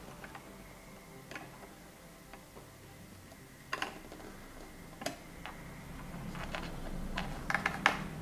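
Small scattered clicks and taps as an M.2 SSD module is worked into its connector slot in a laptop's underside, the card and fingers knocking against the case. A few single clicks come first, then a quicker run of them near the end.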